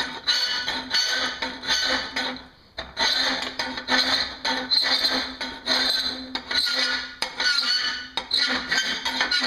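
Hand file rasping in quick back-and-forth strokes, about two a second, across the tang of a forged steel knife blank held in a vise, shaping the tang. Each stroke makes the steel ring. There is a short pause about two and a half seconds in.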